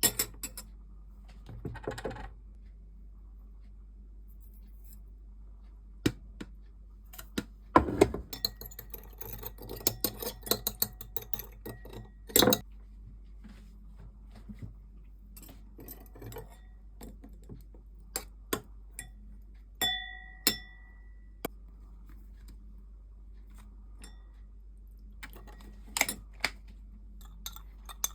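Kitchen utensils and dishes clinking and knocking: scattered sharp clinks, a busy run of them in the middle, and one brief ringing ping like a spoon striking a glass or ceramic bowl.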